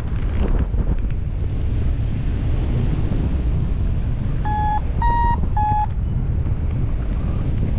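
Wind rushing over the microphone in flight, with a paragliding variometer giving three short beeps about halfway through, the middle one a little higher: the vario's climb tone, signalling lift.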